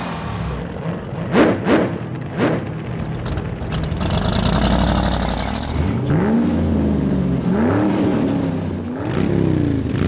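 Car engine revving sound effects, several revs one after another, each rising and falling in pitch, with a hissing rush about four seconds in.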